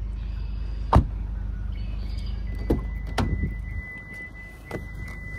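Car doors of a Kia K5 sedan being worked: a sharp thunk about a second in, like a door shutting, then latch clicks as the driver's door is opened. A thin steady high tone comes in about halfway, and a steady low rumble drops away near the end.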